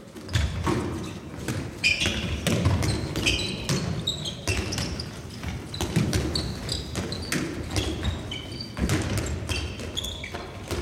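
Handball drill in a sports hall: a handball smacking into hands, bouncing on the wooden floor and thudding on shots, with sneakers squeaking on the floor between the hits. Irregular knocks follow one another, echoing in the large hall.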